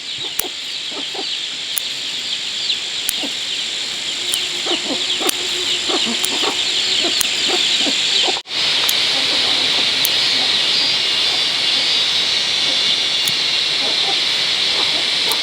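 Dense outdoor chorus of many quick high chirps over a steady high hiss, with scattered soft clicks; it cuts out abruptly once about eight seconds in and resumes.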